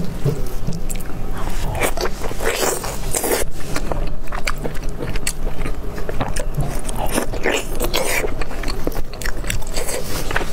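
Close-miked eating sounds: biting into and chewing a chunk of sauce-glazed braised pork belly, a rapid, irregular run of sticky clicks and crackles.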